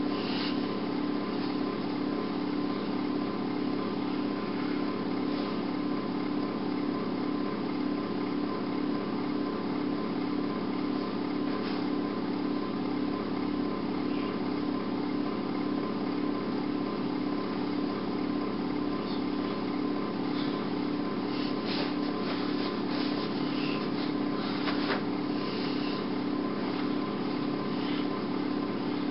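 A steady mechanical hum with an even low pulse and a thin high tone underneath, with a few faint clicks about three-quarters of the way through.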